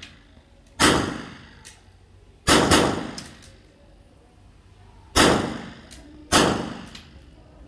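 Five gunshots from a firearm, each with a long echoing tail that dies away over about a second: one shot near the start, a quick pair about two and a half seconds in, then single shots about five and six seconds in.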